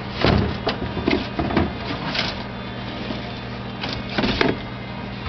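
Refrigerator door and contents being handled: a string of short rustles and clatters over a steady low hum.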